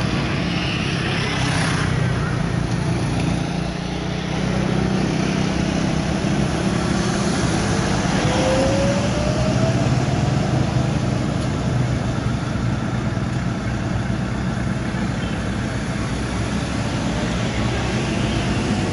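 Road roller's diesel engine running steadily, with a faint rising whine in the middle.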